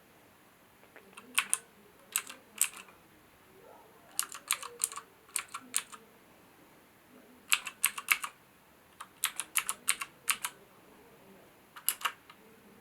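HyperX Alloy FPS Pro mechanical keyboard with Cherry switches, its keys pressed in short irregular bursts of a few clicky strokes each, with brief pauses between them.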